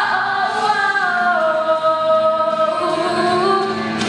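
Female solo voice holding a long wordless sung note over the song's backing music, stepping down in pitch about a second in and sustaining the lower note.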